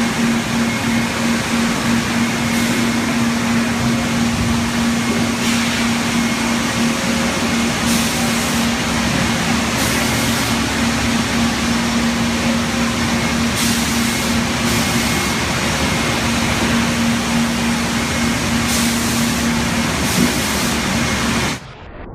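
Industrial plant machinery running loudly and steadily, with a constant hum and short hissing bursts every few seconds. The noise cuts off abruptly shortly before the end.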